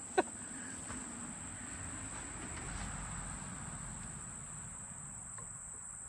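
Steady high-pitched chirring of insects, with faint rustling and a few light clicks.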